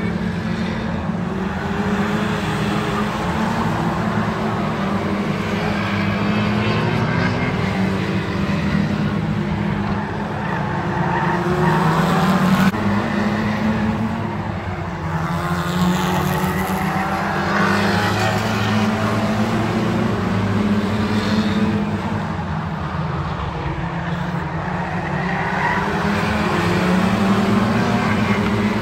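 Several Lightning Rods saloon stock cars racing on an oval track: a steady mix of engines at full throttle, their notes rising and falling as the cars come past.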